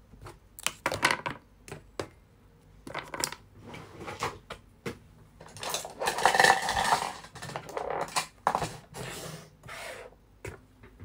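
Small hard objects clinking, knocking and clattering as they are picked up and moved about, in scattered sharp clicks, with a longer, louder bout of rummaging about six seconds in.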